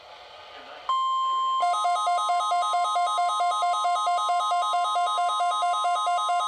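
Weather radio hiss, then about a second in the NOAA Weather Radio 1050 Hz warning alarm tone comes on, loud and steady, for the weekly test. Shortly after, an alarm joins it with a rapid two-tone beeping at about four beeps a second; this is typical of a weather radio receiver set off by the tone.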